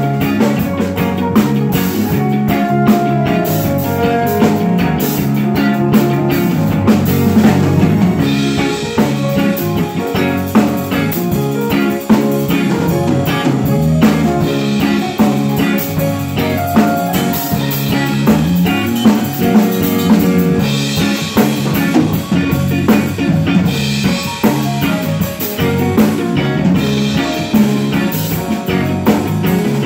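Live band playing an instrumental soul/funk groove, led by drum kit and electric bass, with no vocals. The music gets fuller about eight seconds in.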